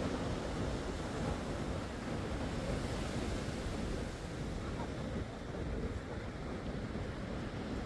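Atlantic surf washing in as a steady rush of waves, with wind rumbling on the phone's microphone.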